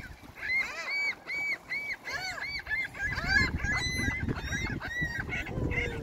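Gulls calling: a quick series of short, arching cries from several birds overlapping, about three a second.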